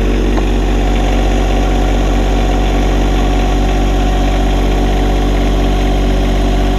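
John Deere 1025R compact tractor's three-cylinder diesel engine running steadily at slightly raised revs while the tractor reverses slowly in low range.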